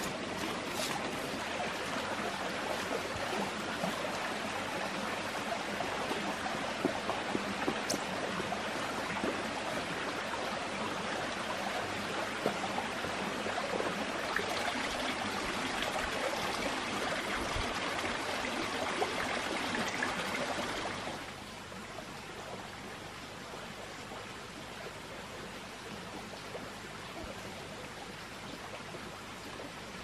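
Steady rush of running water from a small stream. It drops to a quieter, more distant level about two-thirds of the way through.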